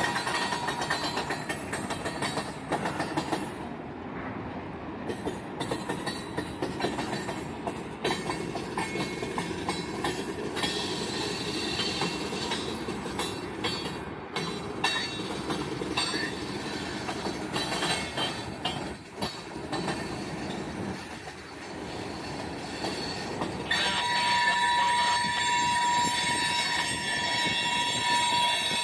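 Freight train of tank cars and covered hopper cars rolling past: a steady rumble of steel wheels on rail with scattered clicks over the joints. A steady high wheel squeal sets in about five seconds before the end.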